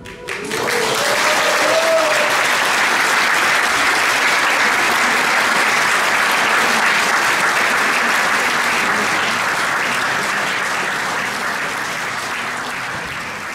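Audience applauding at the end of a piece, a steady clapping that slowly dies down toward the end.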